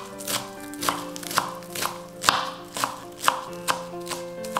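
Kitchen knife chopping leafy greens on a cutting board, the blade striking the board about twice a second, over background music.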